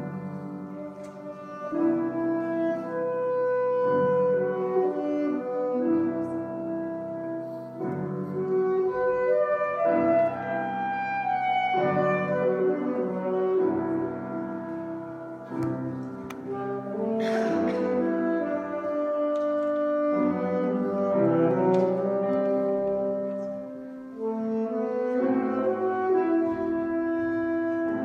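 Alto saxophone playing a slow romance melody in long held notes, with piano accompaniment.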